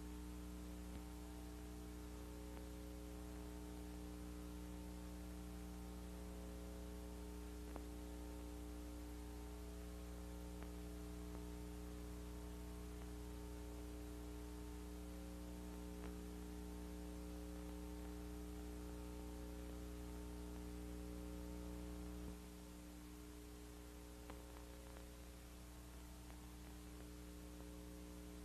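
Faint, steady electrical hum made of a stack of even tones, over a constant hiss. About two-thirds of the way through, the deepest part of the hum drops noticeably quieter.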